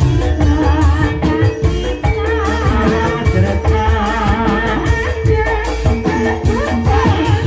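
Live gending ebeg, the Banyumasan gamelan music that accompanies an ebeg dance, playing steadily with regular drum strokes and a wavering, vibrato-laden melody line over it.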